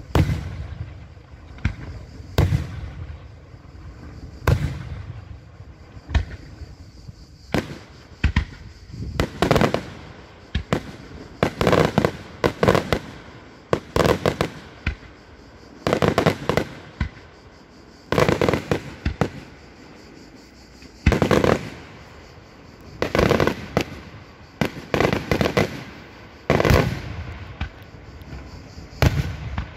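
Daytime fireworks display: aerial shells bursting in a run of loud bangs, one every second or two, some coming in quick clusters of several reports.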